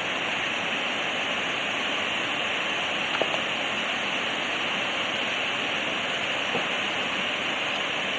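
Mountain stream rushing over boulders: a steady, even rush of flowing water.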